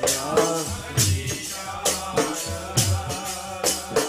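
Sikh devotional kirtan: a voice singing a line of gurbani over a sustained drone, with a sharp percussion stroke about once a second.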